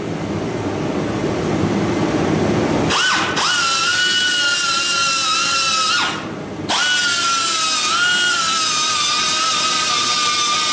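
Small high-speed cutoff tool whining as it grinds through old steel seal studs on a truck's cowl, over a grinding hiss. Twice, about three seconds in and again about six seconds in, it winds down and stops, then spins back up.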